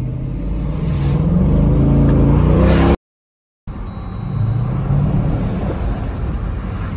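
Dodge Durango SRT's V8 engine heard from inside the cabin, its pitch rising as the SUV accelerates. The sound cuts out completely for under a second about three seconds in, then the engine is heard running again at a lower, steadier pitch.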